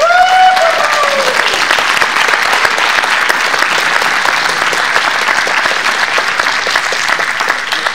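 Audience applauding steadily, with one voice calling out a falling cheer at the start.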